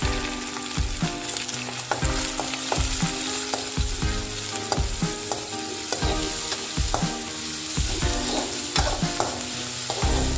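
Chopped onions sizzling in hot oil in a metal kadai, stirred with a metal spatula that knocks and scrapes against the pan about once a second. The onions are being sautéed in a tempering of mustard seeds, dals and curry leaves.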